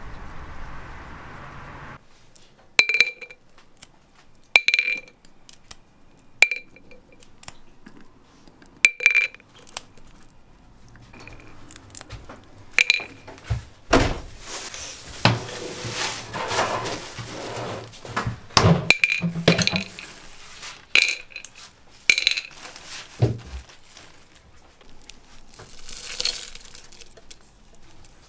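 Kitchen glassware being handled: a glass jar and a metal spoon give sharp, ringing clinks every second or two. In the middle comes a stretch of dry rattling and rustling. Near the end a spoon clinks and scrapes inside a glass French press as loose tea is spooned in.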